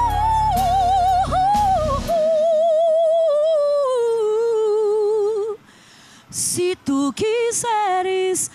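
A woman singing gospel live into a handheld microphone: a long held note with wide vibrato that slides down in pitch, with the low backing accompaniment dropping out about two seconds in. After a brief pause past the middle she starts a new phrase of short, broken notes.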